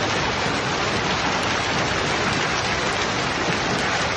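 Heavy storm rain falling, a steady, dense hiss with no let-up.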